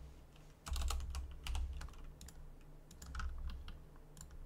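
Computer keyboard typing in a few short runs of keystrokes, with a faint steady low hum underneath.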